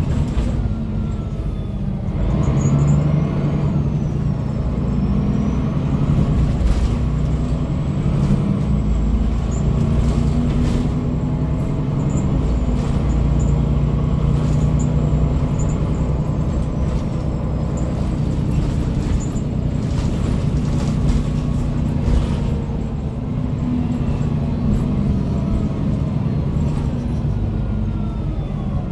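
Interior of a 2002 MAN NG313 articulated bus under way: the MAN D2866 LUH24 diesel and its ZF 5HP-592 automatic gearbox running, the engine note and a gearbox whine rising and falling as it changes gear. Short knocks and rattles from the body come through now and then.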